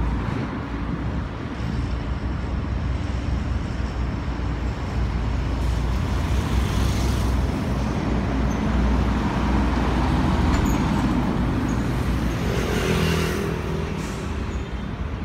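Road traffic going by: a continuous low rumble of truck and car engines and tyres, with a vehicle passing close about six seconds in and another, with a louder engine note, about thirteen seconds in.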